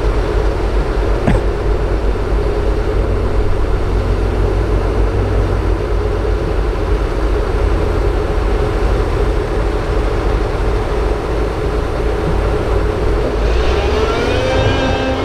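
Doosan DX225LCA crawler excavator's diesel engine running steadily under load as it digs and swings soil, with a short knock about a second in and a rising whine near the end.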